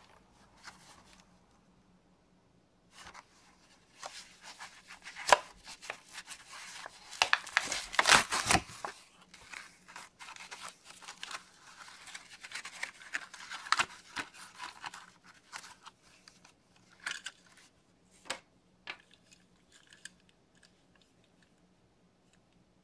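Plastic blister pack of a Matchbox diecast car being torn open from its cardboard backing card, starting about three seconds in: crackling plastic, tearing card and sharp clicks, loudest around eight seconds in, then thinning to a few scattered clicks.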